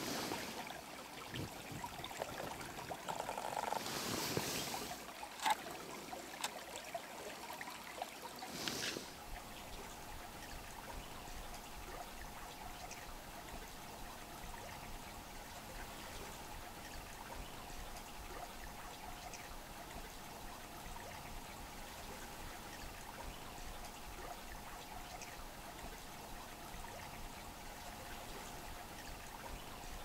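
Small creek trickling under snow and ice, a faint steady flow of water. In the first nine seconds, three louder rushes of noise rise over it.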